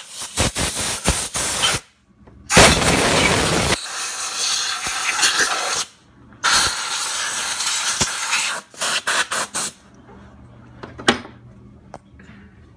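Compressed-air blow gun blowing drill filings out of a cracked Tecumseh engine crankcase. Air hiss comes in a string of quick short blasts, then two long blasts of a few seconds each, then a last run of quick taps.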